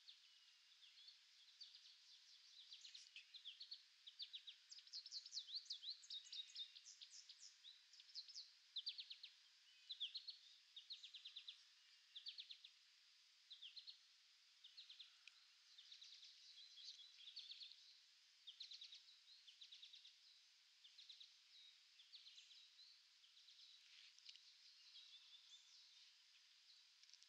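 Faint small songbirds chirping and trilling in short rapid runs of high notes, busiest a few seconds in and thinning toward the end.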